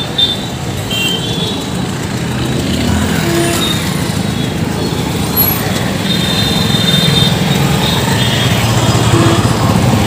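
Busy street traffic: motorcycles and scooters running past in a steady road din that grows a little louder in the second half.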